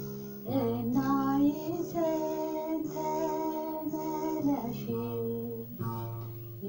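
A woman singing an Amharic Ethiopian Orthodox mezmur in long held phrases, accompanying herself on the begena, the large Ethiopian lyre, with low plucked string notes.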